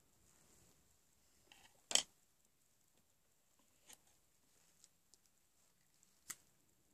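Makeup pencils and their caps being handled: a few sharp clicks and taps, the loudest about two seconds in and another near the end, with fainter ticks between.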